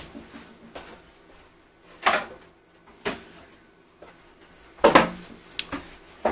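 A few scattered knocks and clunks of objects being handled and set down, with the busiest cluster about five seconds in.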